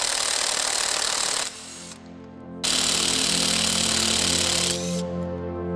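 A power tool cutting through a motorcycle's original chain guard in two runs: it stops about one and a half seconds in and starts again about a second later, running until near the end. Background music plays underneath.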